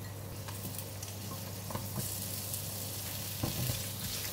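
Ginger slices frying in hot cooking oil in a nonstick wok, a steady sizzle, with a couple of brief knocks and scrapes from a silicone spatula stirring them.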